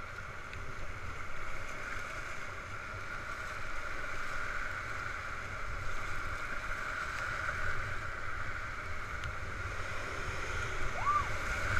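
Whitewater rushing steadily around an inflatable raft as it runs a rapid, with wind rumbling on the microphone.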